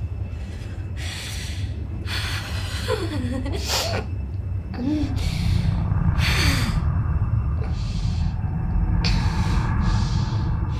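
A woman breathing hard in panic, taking sharp gasping breaths about once a second, with a couple of short whimpers between them. A low steady rumble runs underneath and grows louder about halfway through.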